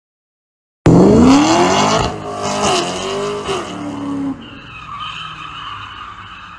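Car engine revving hard with tyres squealing. It starts suddenly about a second in, with the engine pitch rising and falling, and after about three more seconds it drops to a fainter squeal as the car moves away.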